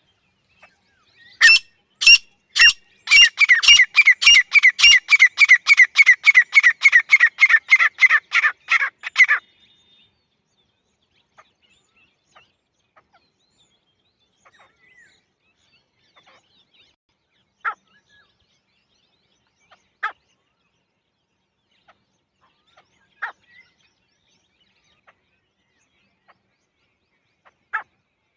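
Female grey francolin calling: a few loud, separate notes, then a fast, even run of repeated notes, about four a second, lasting some six seconds. Later come a few single notes spaced several seconds apart.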